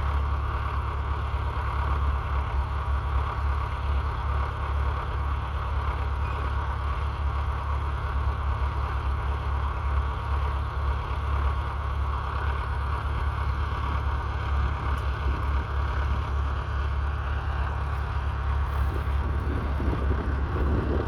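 Massey Ferguson 35's 2.5-litre three-cylinder diesel engine running steadily, with wind buffeting the microphone.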